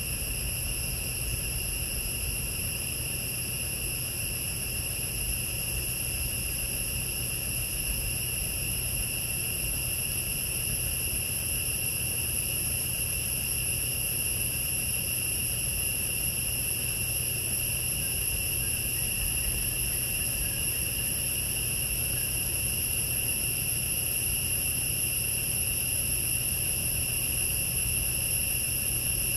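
A steady, unbroken high-pitched drone of forest insects, over a low steady rumble.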